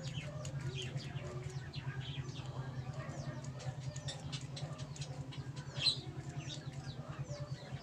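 Small birds chirping in short, quick calls, one louder chirp about six seconds in, over a steady low hum.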